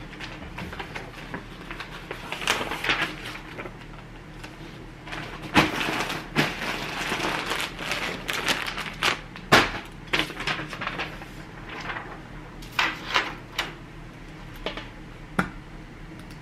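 Plastic poly mailer bags and a paper shipping label being handled: irregular crinkling and rustling with a few sharp taps, over a faint steady hum.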